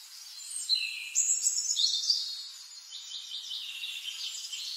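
High-pitched bird chirping: many short overlapping calls and quick pitch glides, loudest in the first half.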